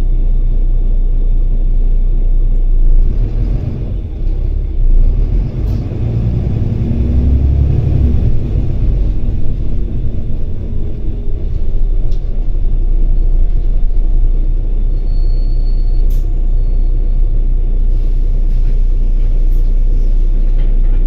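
Volvo B9TL double-decker bus heard from inside the passenger cabin: its diesel engine runs with a steady low rumble that grows louder between about six and nine seconds in, with a few brief knocks and rattles from the body.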